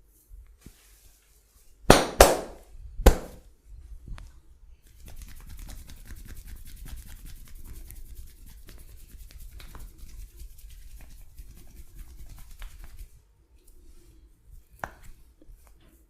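Hand massage: three loud sharp smacks about two and three seconds in, then several seconds of fast, even rubbing that stops a few seconds before the end.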